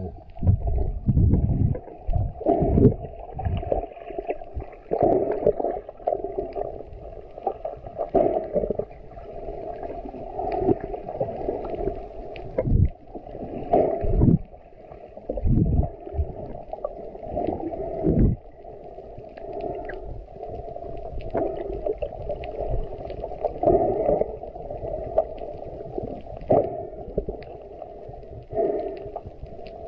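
Muffled underwater sound of water moving around a camera swimming with a freediver: a low rumble with irregular dull thumps and swishes every second or two, nothing clear above the low range.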